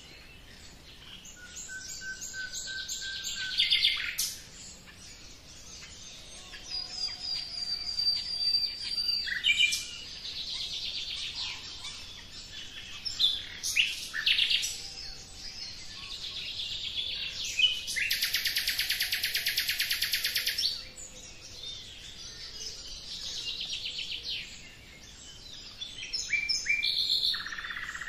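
Several songbirds chirping, whistling and trilling. One long, fast trill starting about eighteen seconds in and lasting some three seconds is the loudest call.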